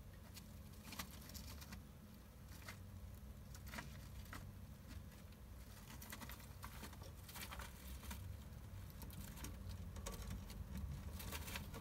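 A hamster scrabbling about in loose shredded bedding: faint, scattered rustles and light clicks, busier in the second half.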